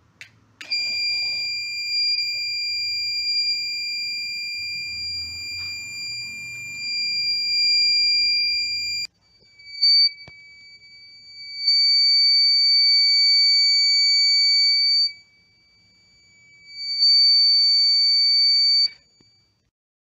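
Small electronic buzzer of a homemade flame-detecting alarm sounding a steady high-pitched tone, set off by a flame held near its IR receiver sensor. It sounds without a break for about eight seconds and stops suddenly, then comes back as a short blip, a stretch of about three seconds, and another of about two seconds.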